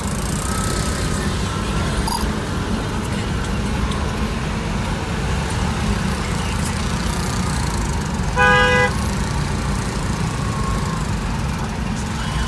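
Steady low rumble of slow city traffic heard from inside a car, with one short vehicle horn beep about two-thirds of the way through, the loudest sound.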